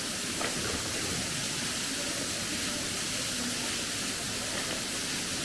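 Waterfall pouring into a pool, a steady even rush of falling water.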